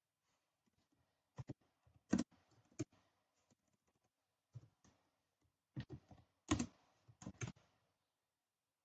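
Typing on a computer keyboard: separate key clicks at an irregular pace, a few keystrokes at a time with pauses between.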